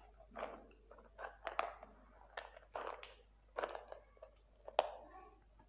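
A plastic bottle and its screw cap handled and twisted open with gloved hands: a run of irregular crinkles, scrapes and clicks, the sharpest near the end.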